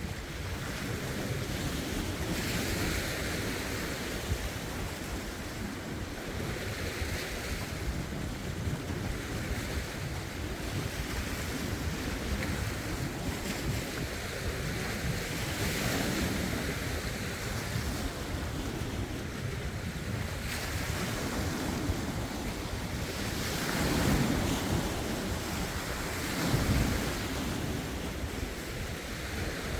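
Lake waves washing over shoreline rocks, swelling and easing every few seconds, with two louder swells near the end. Wind buffets the phone's microphone, adding a low rumble.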